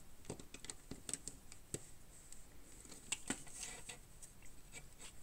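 Faint, scattered clicks and taps of small plastic Wange building bricks being handled and tried in place.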